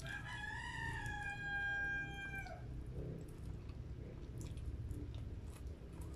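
A rooster crowing once: a single long call of about two and a half seconds, held level and dropping in pitch at the end. Faint chewing clicks follow over a steady low hum.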